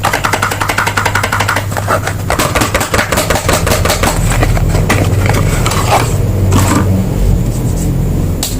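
Crinkling and rustling of soap wrapping being handled and torn open, dense for the first few seconds and then sparser, over a steady low hum.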